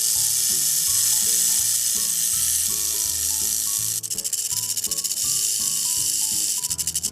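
Rattlesnake shaking its tail rattle: a continuous dry, high buzzing hiss that breaks off briefly about four seconds in, then resumes. The rattle is the snake's defensive warning signal.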